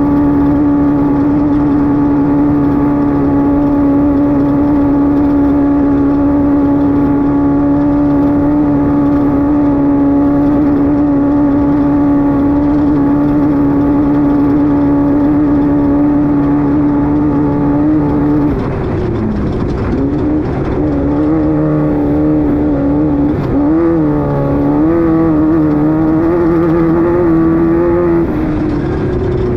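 Class 5-1600 race car's 1600 cc air-cooled Volkswagen flat-four engine running at a steady high pitch, held flat out. About two-thirds of the way through the revs drop. They then rise and fall repeatedly as the throttle is worked.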